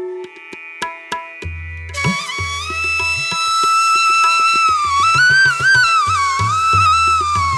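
Instrumental background music in an Indian classical style: low drum beats, then a sustained, wavering flute-like melody that enters about two seconds in.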